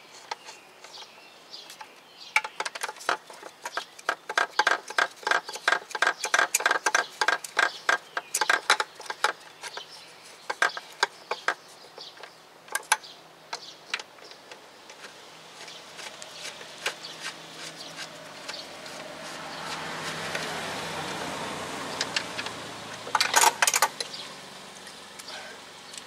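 A hand ratchet clicking in fast runs as the starter's mounting bolts are run down. Later a rush of noise swells and fades, and a short burst of louder clicks follows near the end.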